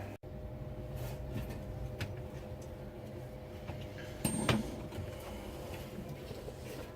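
Handling noises as thin steel sheets and a clamp are set up for welding: scattered light clicks and knocks, with one louder metallic clank about four seconds in, over a steady electrical hum.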